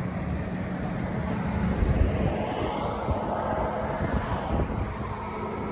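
A vehicle passes by, swelling and fading midway, over a steady low rumble and hum, with wind on the microphone.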